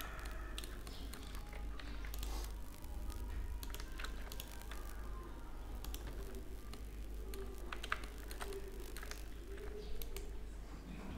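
Computer keyboard keystrokes and mouse clicks, irregular and scattered, with two sharper clicks near the end, over a steady low hum.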